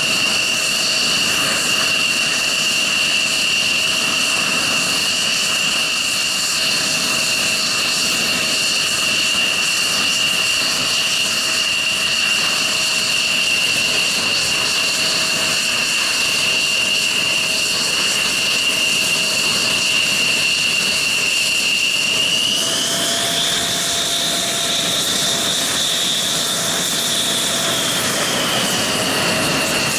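F-16 fighter's jet engine running at ground idle with a steady high whine. About three-quarters of the way in the whine rises in pitch as the engine spools up, holds for a few seconds, then eases back down as the jet begins to taxi.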